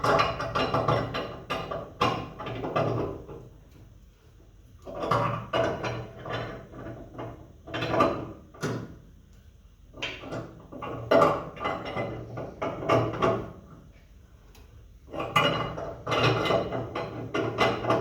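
Wrench turning the large nut on the threaded rod of a homemade coil spring compressor, metal creaking and grinding as the nut draws up against the load of a 1963 Ford Fairlane's front coil spring. It comes in four strokes of about three seconds each, with short pauses between as the wrench is reset.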